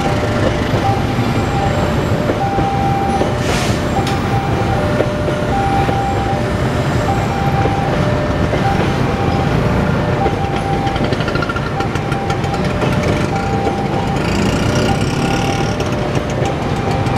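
Passenger train coaches rolling past over a level crossing with a steady rumble and wheel clatter. The crossing's electric warning alarm sounds throughout, a repeating two-tone signal alternating high and low.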